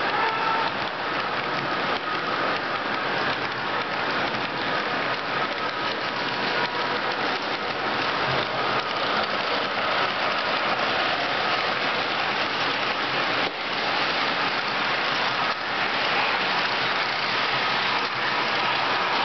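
Model railway freight train rolling past, its wagons' wheels running on the rails in a steady, even rattle.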